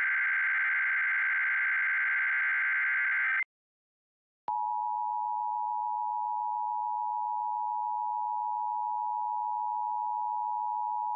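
Emergency Alert System SAME header: a harsh, buzzing digital data burst that stops about three and a half seconds in. After a second of silence, the EAS attention signal starts: a steady two-tone beep, 853 and 960 Hz sounded together.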